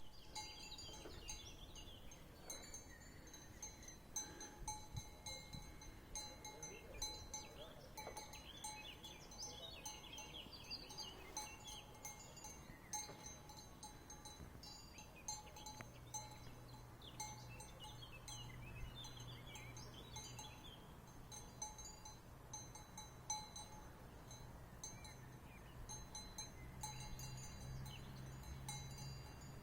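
Bells on grazing sheep clinking faintly and irregularly, many small ringing strikes as the animals move.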